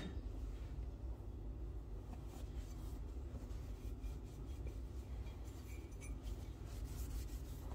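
Cloth tea towel rubbing a ceramic mug dry: soft, faint wiping and rustling over a low steady hum.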